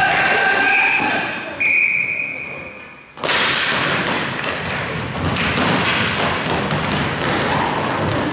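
Roller hockey play in a gym hall: knocks and thuds of sticks, puck and skates on the court. In the first second and a half a steady pitched tone sounds, then a held high tone fades out. The sound cuts back in abruptly about three seconds in.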